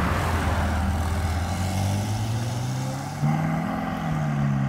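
Ferrari GTC4Lusso engine accelerating hard as the car pulls away, its note climbing steadily, with a sudden jump in loudness a little after three seconds in.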